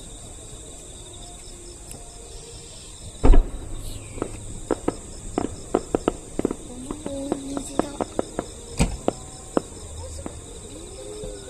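Insects chirring steadily and high-pitched, with one loud firework boom about three seconds in. A run of sharp crackling pops follows for several seconds, and a whistling glide comes near the end.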